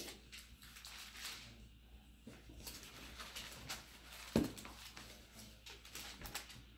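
Thin Bible pages being leafed through, soft intermittent paper rustling, with a single thump about four and a half seconds in.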